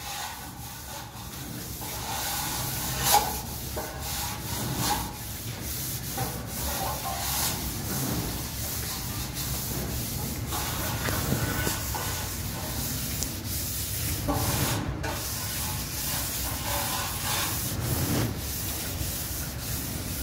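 Hand float rubbing over a fresh plaster wall in repeated strokes, a continuous scratchy scraping that swells and eases with the hand's movement. There is a brief sharp knock about three seconds in.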